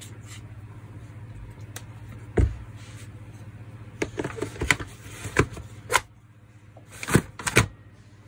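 Dismantled power-tool parts being handled and set down on a workbench: scattered knocks and clatters, the loudest about two and a half seconds in and twice near the end. A low steady hum runs underneath and stops about six seconds in.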